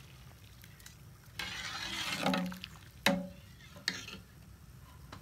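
A steel ladle stirring rice in water in an aluminium pot: a sloshing swish, then the ladle knocks against the pot twice, the first knock with a short metallic ring.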